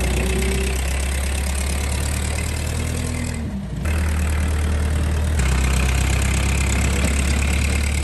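1974 Massey Ferguson backhoe's engine running steadily as the machine works, with a brief dip in the sound about three and a half seconds in.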